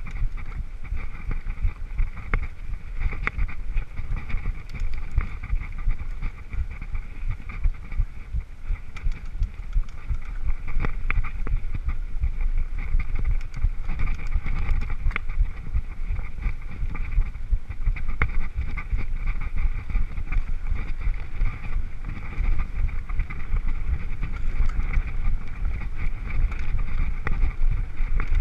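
Mountain bike ridden over a bumpy dirt forest trail, heard from a camera on the rider: a steady rumble of wind on the microphone and trail vibration, with many small clicks and rattles from the bike.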